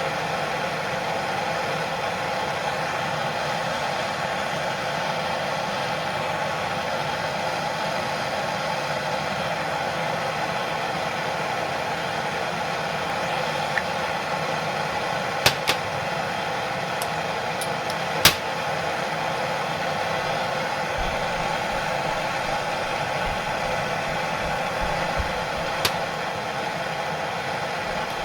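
Handheld soldering torch burning with a steady hiss as it heats a PEX fitting, with a few sharp clicks, the loudest about eighteen seconds in.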